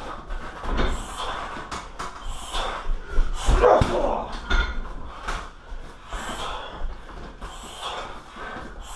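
Strikes landing on a 60 kg heavy bag in an irregular series of sharp thuds, with short forceful exhalations from the fighter between and with the blows.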